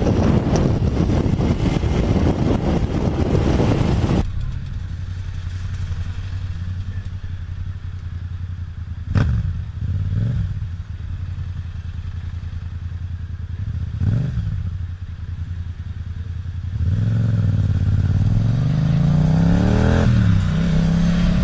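Wind rush over the microphone of a motorcycle at road speed, which cuts off after about four seconds. It gives way to a Yamaha motorcycle engine idling, blipped twice, then pulling away with the revs climbing through a gear change near the end.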